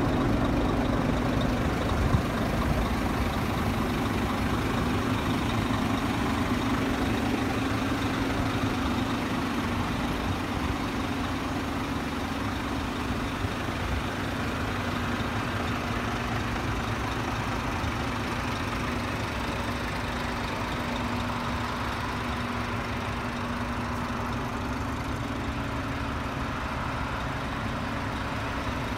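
Scania G480 truck's six-cylinder diesel engine idling steadily, with a single short thump about two seconds in.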